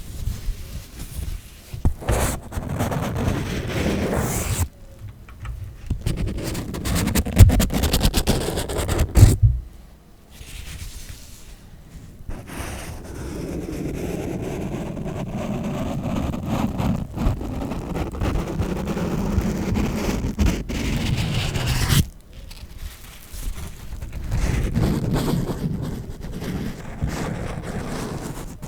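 Hands handling an Aukey mechanical keyboard and its packaging: rustling and scraping, with a quick run of clicks in the first third and a longer stretch of steady rubbing noise in the middle.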